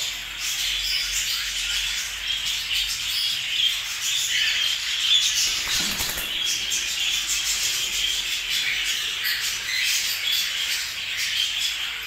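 A flock of caged cockatiels chirping and calling continuously, with a brief flurry of wing flapping about six seconds in.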